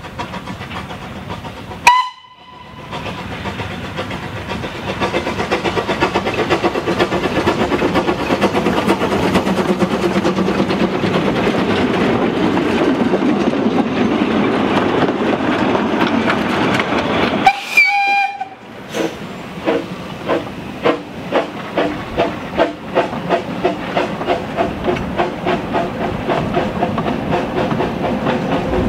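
Narrow-gauge steam locomotive: a short whistle blast, then a long steady rush of steam and running noise that slowly builds. A second short whistle comes about two-thirds of the way through, and then the exhaust beats, about two a second and quickening as the engine gets away.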